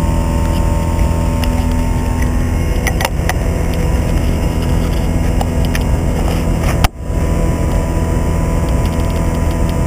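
Avid Flyer light aircraft's engine and propeller running steadily, heard from the cockpit. About seven seconds in there is a sharp click and a momentary dip in level.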